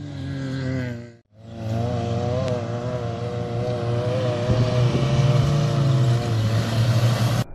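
Toyota Fortuner SUV's engine revving hard under load as its tyres spin and slide in soft sand, the pitch wavering up and down, over a hiss of thrown sand. The sound cuts out briefly about a second in.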